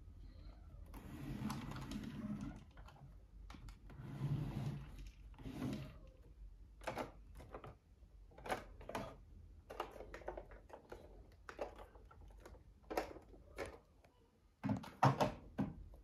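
Hard plastic parts of a Fisher-Price toy robot rubbing, clicking and knocking as the head section is worked loose and pulled off its wheeled base. Soft rubbing early on gives way to a run of separate clicks and knocks, with a quick cluster of louder knocks near the end.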